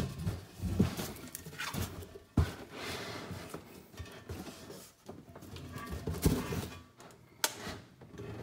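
Handling noise of an alloy wheel in its cardboard shipping box: cardboard scraping and rustling with scattered knocks, and sharp clicks about two and a half seconds in and again near the end.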